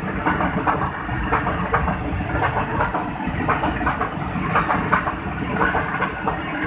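A freight train of oil tank wagons rolling past close by, its steel wheels clattering over the rail joints in a steady run of irregular knocks.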